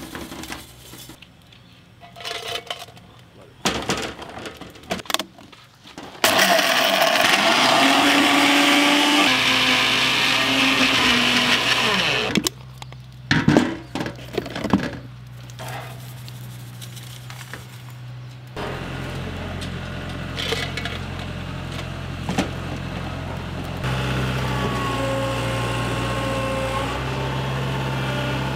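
Plastic lid of an electric mixer-grinder jar clicking and knocking as it is handled, then the mixer grinder running loud and steady for about six seconds, grinding Oreo biscuits, followed by more clicks of the jar. About two-thirds of the way in, a steady low engine hum from a combine harvester takes over.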